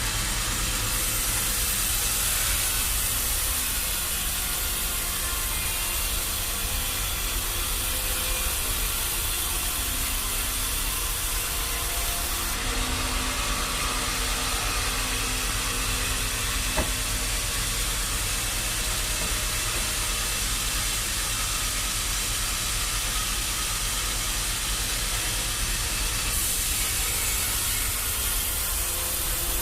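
Sawmill machinery running steadily: a low engine hum under a constant hiss, with a single sharp click about seventeen seconds in.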